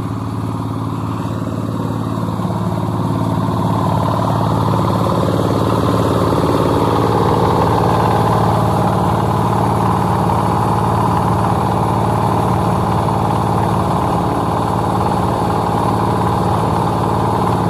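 Concrete mixer's engine running steadily, growing a little louder over the first few seconds.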